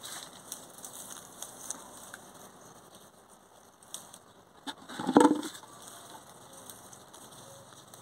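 Acerola bush leaves and twigs rustling and crackling as ripe fruit is picked by hand, with scattered small clicks and a louder short knock about five seconds in.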